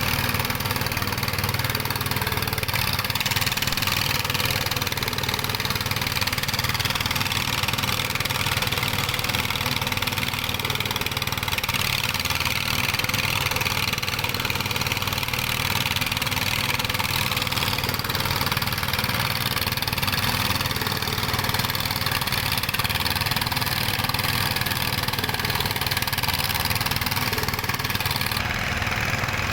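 Dongfeng stationary diesel engine running steadily at an even speed, with a continuous hiss over its low running note.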